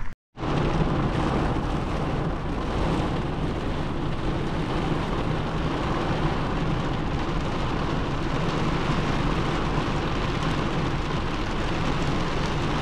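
Heavy rain falling on a car's roof and windshield, heard from inside the cabin as a loud, steady hiss.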